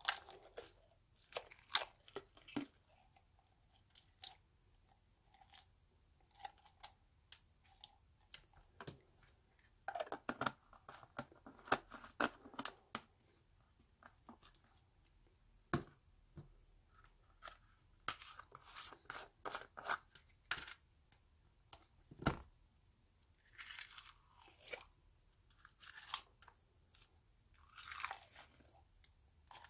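Foam-bead crunchy slime crackling and popping as a plastic spoon digs and scoops it out of a small plastic jar. The crunching comes in irregular bursts with sharp clicks, busiest about ten and again about nineteen seconds in.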